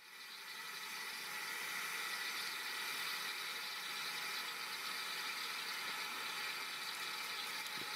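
Steady hiss of steam escaping from a steam locomotive, fading in over the first second.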